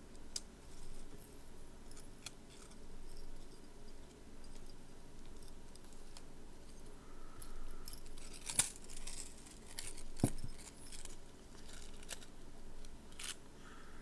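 Small handling noises of a metal necklace chain and a cardboard jewelry card: soft jingling, rustling and scattered light clicks, with two sharper clicks a little past the middle.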